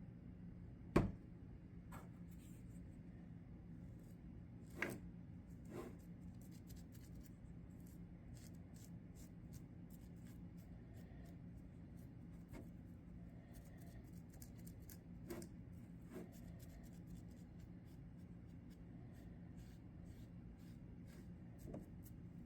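Faint scattered clicks and knocks of small objects being handled over a low steady hum, the loudest knock about a second in.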